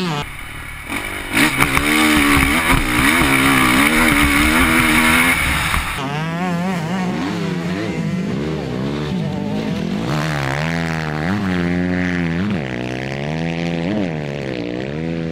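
Motocross bike engines revving hard, pitch rising and falling with each throttle burst and gear change. Loudest from about a second and a half in, as a bike passes close, and this drops off abruptly about six seconds in, followed by more bikes revving up and down.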